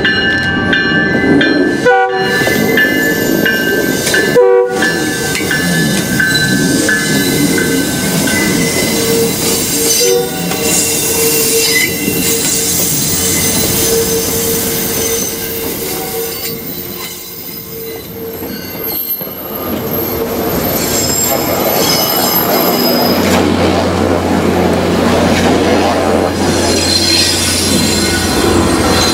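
MBTA commuter train passing slowly on a curve, its steel wheels squealing steadily against the rails, with the horn sounding. Near the end the diesel locomotives pass close, their engine a low steady drone under the wheel noise.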